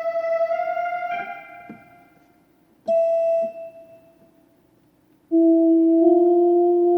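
LP6110E portable keyboard sounding single notes on its choir voice: one note at the start that fades out, a shorter one about three seconds in, and one held steadily near the end.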